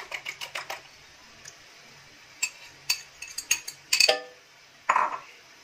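Egg and chia-seed mixture being beaten with a utensil in a glass bowl: a quick run of light clinks against the glass, then several separate sharp taps on the bowl. A brief swish near the end as the mixture goes into the pan.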